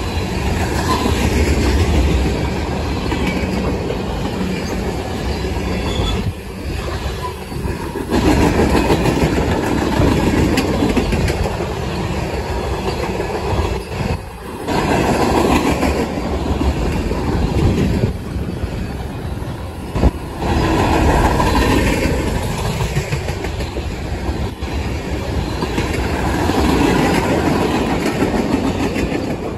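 Freight train cars, tank cars and autoracks, rolling past close by: a continuous rumble of steel wheels on rail with clacking over the rail joints, swelling and dipping every few seconds as the cars go by.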